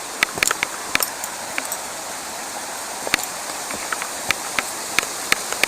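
Steady rush of a mountain creek's flowing water, with a dozen or so sharp, irregular clicks and taps scattered over it.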